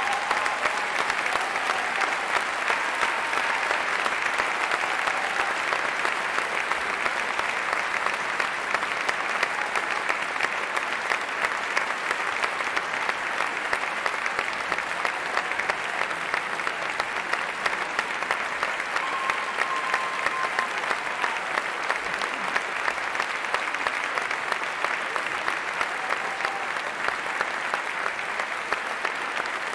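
Large audience applauding at the close of a speech, a dense, steady clapping that eases off slightly toward the end.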